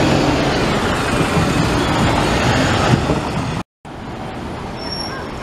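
A single-deck bus's engine running close by as it pulls away, with a whine that rises and falls. About three and a half seconds in, the sound cuts off abruptly and resumes as quieter street traffic with a double-decker bus approaching.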